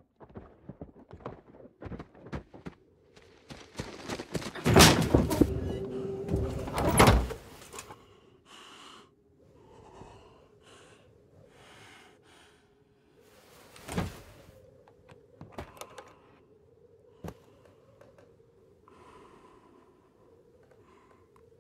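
A run of knocks and thuds, loudest as a cluster of heavy thuds about five to seven seconds in, then a single hard thump near the middle and fainter knocks and rustles, over a faint steady hum.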